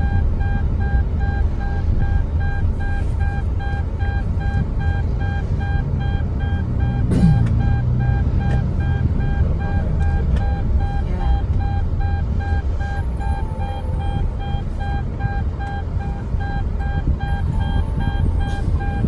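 Car cabin while driving: low engine and road rumble, with an electronic warning chime beeping over and over, the kind of seatbelt reminder that was being talked about.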